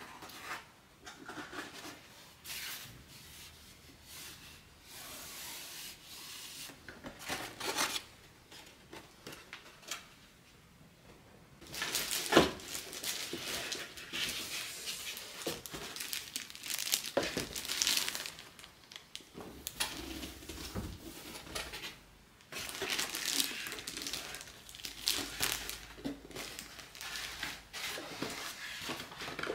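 Clear plastic bag crinkling and rustling as a large boxed doll and its moulded packing insert are handled and pulled out of a cardboard box, with cardboard scraping and knocking. It starts with a few quiet handling noises, then turns busy with a sharp knock about twelve seconds in.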